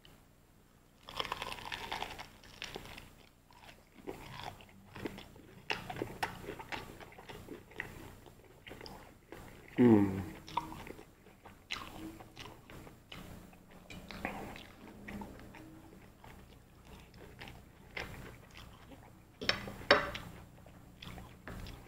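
Close-up crunching and chewing of crispy fried chicken, a run of short crackly bites and chews. About ten seconds in there is one louder sound that falls in pitch.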